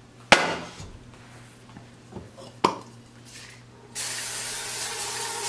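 A metal baking sheet set down on a glass-ceramic stovetop with a sharp clack, and a second, lighter knock a couple of seconds later. About four seconds in, an aerosol can of cooking spray starts hissing steadily as it coats the sheet.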